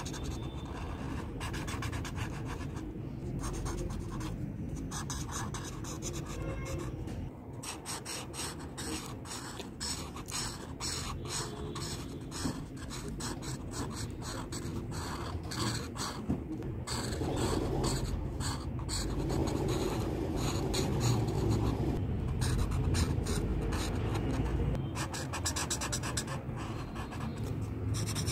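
Felt-tip marker colouring on paper: a scratchy rubbing of the tip in rapid, repeated strokes.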